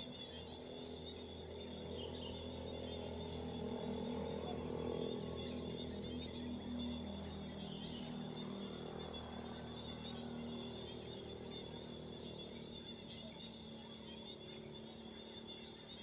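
Outdoor natural ambience: a steady high-pitched insect trill with a few scattered bird chirps. A low hum swells in the first few seconds, is loudest around five seconds in, and fades out later.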